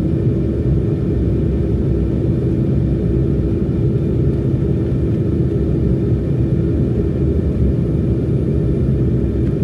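Steady low rumble of an airliner's cabin in flight, with a constant hum underneath, as the plane descends toward landing.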